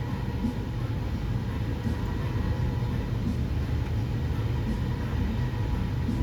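Steady low mechanical rumble with a faint steady whine over it.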